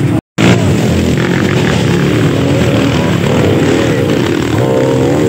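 Dirt bike engine running and revving in a loud continuous drone, cutting out completely for a split second just after the start.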